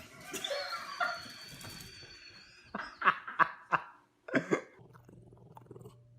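A dog making a few short, sharp sounds in quick succession about three seconds in, with one more a second later.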